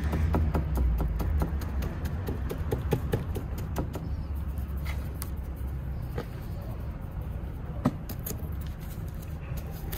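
Small gritty clicks and crunches of granular bonsai substrate being pressed down and worked into a wooden pot with a gloved hand and a stick, with one sharper click near the end. Under it runs a low steady rumble, stronger in the first few seconds.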